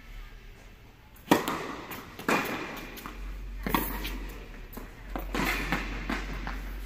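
Tennis ball struck by rackets and bouncing on an indoor hard court during a serve and rally. A sharp pop about a second in is followed by more hits and bounces roughly every second or so, each with a short echo.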